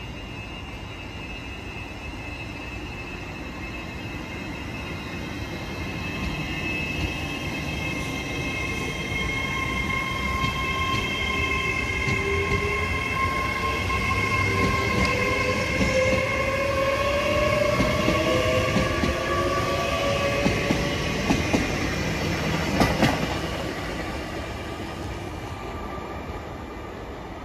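GWR Intercity Express bi-mode train running through on its diesel engines, a steady whine with a slowly rising tone as it comes past. It grows louder to a peak about two-thirds in, with a few sharp wheel clacks over the rail joints, then fades away.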